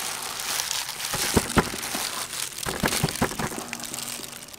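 Dry breadcrumbs rustling and crunching as hands press and turn chicken pieces in a stainless steel tray, with a few sharp clicks about a second and a half in and again around three seconds in.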